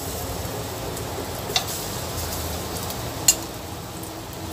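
Halved pisang kepok bananas frying gently in a little oil in a nonstick pan, a soft steady sizzle, with two sharp clicks of tongs against the pan as more pieces are laid in.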